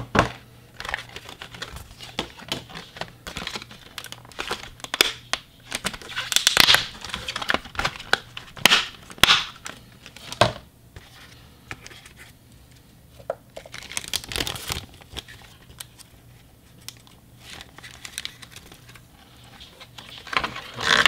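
Plastic wrap and a clear plastic packaging tray crinkling and rustling in irregular handfuls as a model freight car is unwrapped, loudest in bursts through the middle and quieter in the last few seconds.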